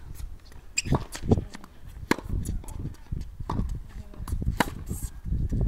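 Tennis balls being struck by rackets and bouncing on a hard court during a baseline rally: about five sharp pops spread a second or so apart, over a steady low rumble.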